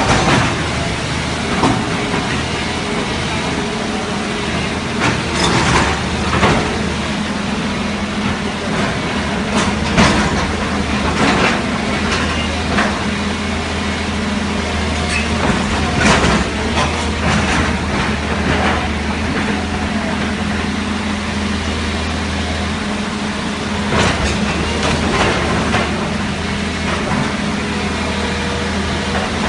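Heavy diesel engine of a bulldozer running steadily during demolition work, with scattered knocks and crashes of the structure being broken down.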